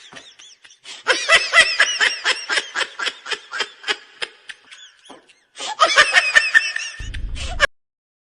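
A person laughing hard in rapid, high-pitched bursts. There is a brief pause about five seconds in, then a second bout that cuts off suddenly near the end.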